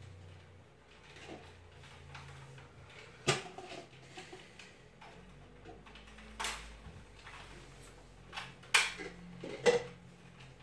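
Scattered knocks and clatters of cups being handled and set down as targets: five or so sharp ones, two of them close together about nine seconds in.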